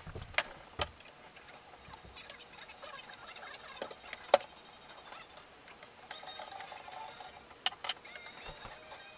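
About six sharp clicks and knocks of tableware: a hot sauce bottle being handled over a bowl and a spoon against the bowl. There are two near the start, two around four seconds in, and two close together near the end.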